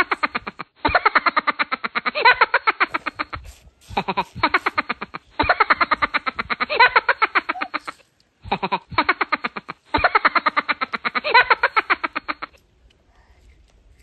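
An added cartoon sound effect: a fast, buzzing, voice-like pulsing in several bursts with short gaps, stopping about a second and a half before the end.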